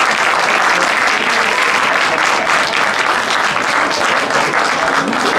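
Spectators applauding, a steady dense clapping that marks the end of the first half.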